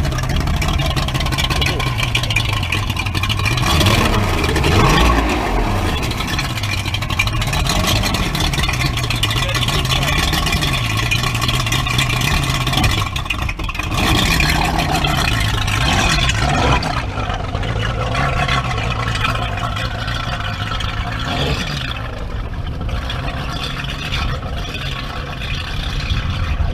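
Speedboat engine running at speed, its pitch wavering up and down over a loud rushing noise.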